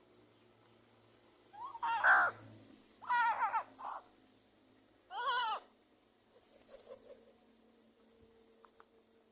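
Three loud calls from an animal, each under a second long, made of pitched sounds that bend in pitch. The second call breaks into two parts.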